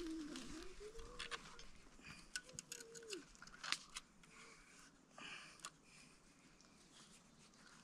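Faint clicks and scrapes of a knife cutting and whittling a wooden stick, a few strokes at uneven intervals. There are a couple of soft, low, wavering calls in the first three seconds.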